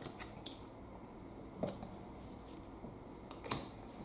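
Magic: The Gathering trading cards being handled and flipped through, giving a few light clicks and snaps, the clearest about halfway through and again near the end.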